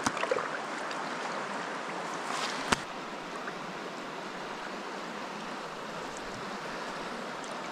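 Shallow river water running steadily over rocks, with a single sharp click a little under three seconds in.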